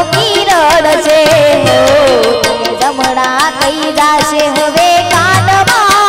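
Live devotional bhajan: a woman singing an ornamented, wavering melody into a microphone over held harmonium chords, with rapid drum and cymbal strokes keeping the beat.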